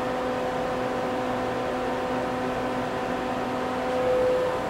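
Steady machine hum with several held tones, one of them dropping out about three seconds in.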